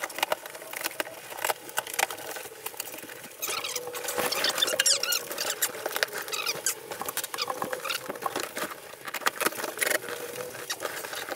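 Large cardboard box being torn and pulled open by hand: a dense run of crackles, scrapes and rips of cardboard and packing tape, with a few short high squeaks about four seconds in.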